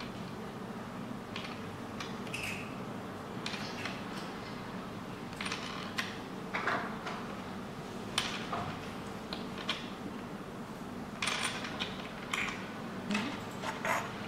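Scattered clicks and short scrapes of small hardware being handled as a boat canvas fitting's lower part is installed on a wooden board, about ten of them, more frequent in the second half, over a steady low hum.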